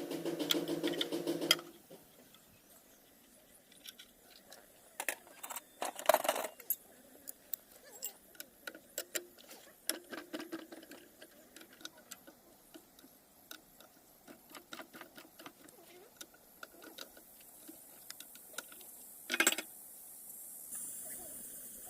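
Irregular light clicks and taps, with a brief hum at the start and one louder knock near the end.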